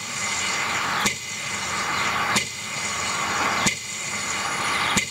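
Slow metronome beat of a minute of silence played over loudspeakers, one tick about every 1.3 seconds, over a steady hiss.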